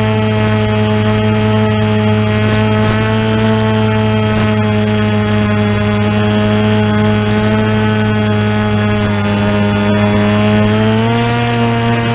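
Model airplane's motor and propeller running at steady cruise throttle, heard from a camera mounted on the plane, with rushing air noise over it. The pitch rises near the end as the throttle is opened.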